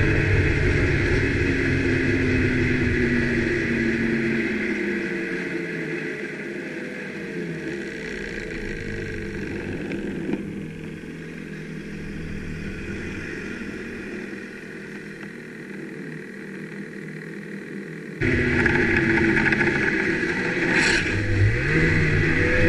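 Ski-Doo snowmobile running on the trail, its engine pitch rising and falling with the throttle. It grows quieter for a long stretch in the middle, then comes back loud suddenly near the end.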